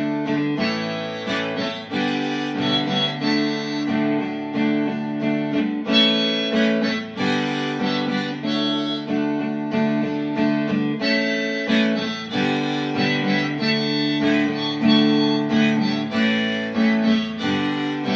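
Instrumental break of a country song: acoustic guitar strumming under a harmonica playing the melody.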